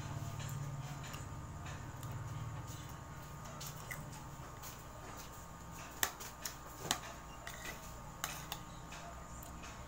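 Metal spoon clinking and scraping against a ceramic plate while ripe mango is scooped and cut, with a few sharp clinks in the second half over a faint steady hum.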